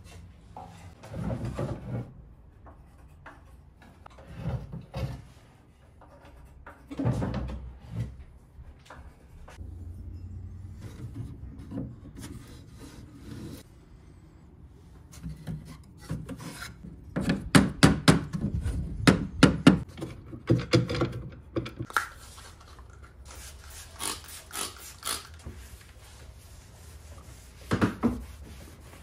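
The wooden drawers of a Stanley mid-century dresser are pulled out and handled: wood sliding, scraping and knocking in irregular bursts. About two-thirds of the way through comes a dense run of sharp knocks.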